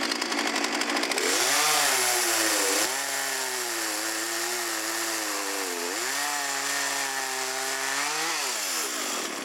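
Chainsaw engine running at high revs, its pitch climbing about a second in, sagging briefly twice, then falling away near the end.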